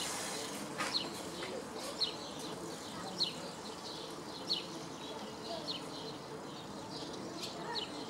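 Short high bird chirps, each a quick downward slide, repeated irregularly about once a second over a steady low background hum.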